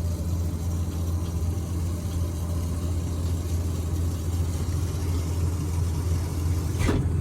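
Truck engine idling steadily, with a single short knock near the end.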